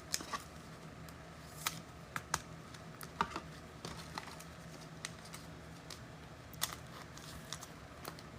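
Scattered light clicks and taps, about a dozen at irregular intervals, over a faint steady low hum.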